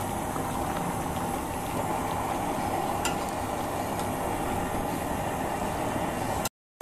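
Chicken and potato curry sizzling and simmering in a wide metal pan as it is stirred with a spatula. The noise is steady, with a couple of faint clicks of the spatula against the pan, and it cuts off abruptly shortly before the end.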